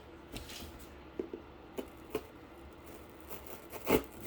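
Cardboard pieces being handled: a few scattered taps and light scrapes, with a louder knock near the end.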